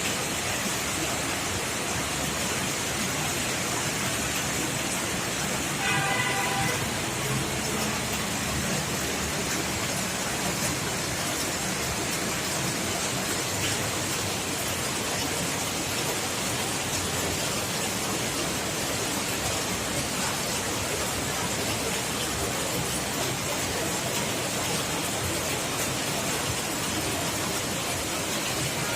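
Rain falling, a steady even hiss throughout, with a brief pitched sound about six seconds in.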